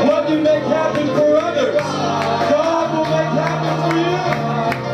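Live church worship band playing upbeat music, an electric bass holding low notes under voices singing.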